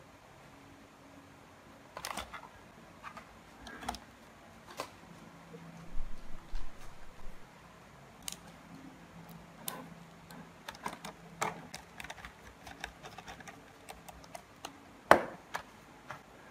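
Scattered clicks, taps and light knocks of hands working on a partly disassembled laptop's plastic case and parts, with one louder knock near the end.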